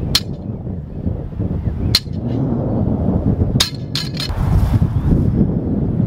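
Loaded barbell with bumper plates touching down on gravel during deadlift reps: sharp metallic clinks about every two seconds, the last two close together near four seconds in, over a steady low rumble.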